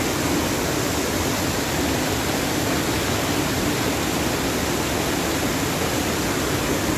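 Steady rush of fast-flowing river floodwater churning and pouring across a flooded road.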